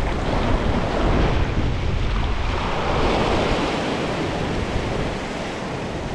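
Sea swell surging and washing over the rocky ledge and kelp, one wave rushing in about halfway through, with wind buffeting the microphone.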